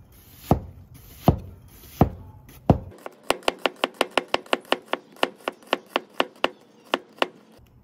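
Hammered-steel cleaver slicing an onion paper-thin on a bamboo cutting board, each cut knocking on the board. Four slow, separate cuts come first; about three seconds in they turn into a quick run of about five chops a second, which stops shortly before the end.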